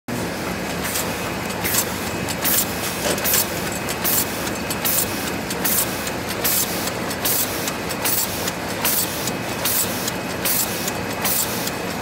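Automatic T-shirt plastic bag-making machine (Chinese KS-1000D, two lanes) running in production: a steady mechanical din broken by short sharp hisses about two and a half times a second, in time with the machine's cycle.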